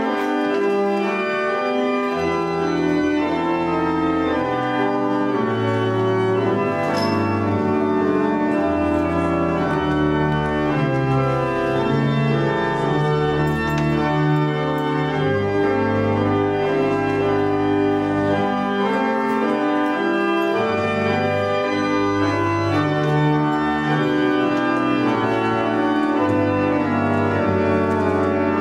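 Pipe organ playing a slow piece of full, sustained chords over a bass line that steps to a new held note every second or two.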